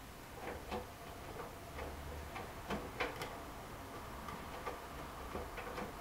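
AEG Lavamat washing machine during its final rinse, the drum turning slowly: irregular light clicks and knocks from the tumbling laundry over a low motor hum.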